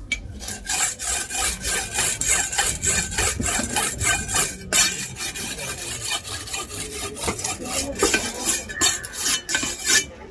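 Kal koduva fish being scaled with a knife: rapid, rhythmic scraping strokes of the blade against the scales, stopping just before the end.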